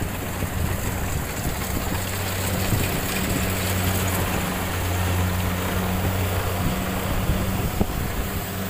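Rice combine harvester engine running with a steady low drone, under a constant rushing noise.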